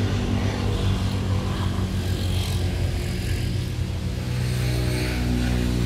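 A motor vehicle's engine running steadily with a low hum, a little louder from about four and a half seconds in.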